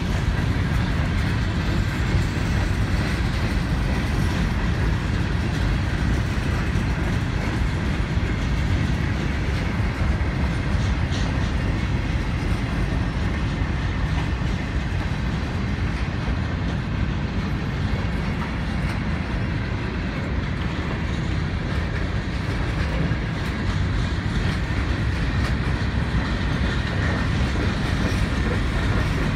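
Freight cars of a manifest train, covered hoppers and boxcars, rolling past at close range: a steady, loud rumble of steel wheels on rail, with clickety-clack as the wheels pass over rail joints.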